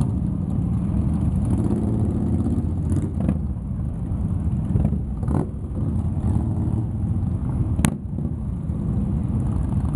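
Many cruiser and touring motorcycles riding slowly past in a procession, engines running at low revs with an occasional brief rev. A single sharp crack sounds about eight seconds in.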